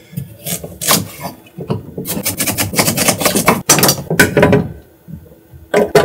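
Knife chopping raw carrots on a cutting board: a run of quick, irregular cuts, with a short pause near the end before the chopping starts again.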